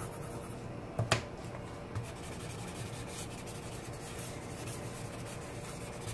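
Pencil shading on drawing paper: rapid back-and-forth strokes making a steady rubbing scratch, with one sharp tap about a second in.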